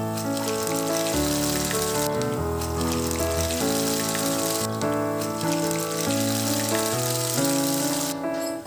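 Mustard and cumin seeds sizzling in hot oil in a pan, heard with background music. The sizzle drops out briefly twice and stops near the end, while the music carries on.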